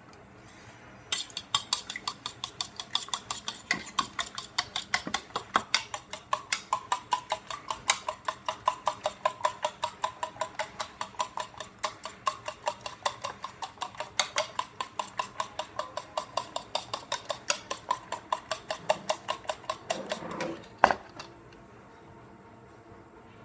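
A metal fork whisking rapidly in a stainless steel bowl: a long run of quick, even metallic clinks, several a second, each leaving a brief ring from the bowl. It stops with one louder clank about 21 seconds in.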